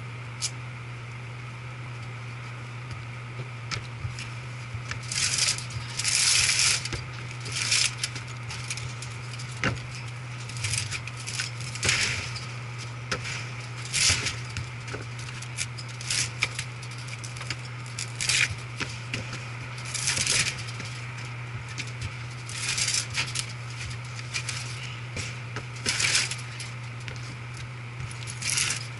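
Metal tools and parts clinking and rattling as they are handled, in short bursts every second or two, over a steady low hum.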